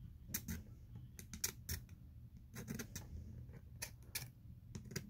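A thin metal tool scraping the plastic bottom edge of a ZTE Jasper LTE phone's frame in short, quick scratchy strokes, about a dozen in small irregular groups, shaving the plastic.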